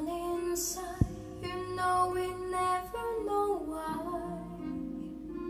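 A song with a woman singing, played through an Akai AM-U 210 amplifier and Energy Pro 1.5 floor-standing speakers and heard in the room. One sharp knock cuts through about a second in.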